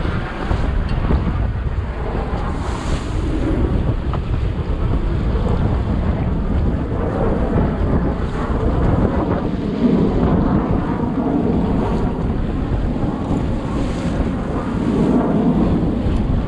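Strong wind buffeting the microphone over the rush of choppy water and the boat's churning wake, with an outboard motor running underneath at trolling speed. The low rumble swells louder now and then.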